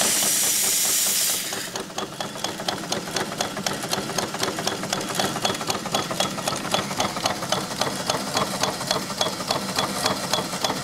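Quarter-scale live-steam model logging donkey running: a loud hiss for about the first second and a half, then a rapid, even mechanical clicking beat from its small steam engines and pump.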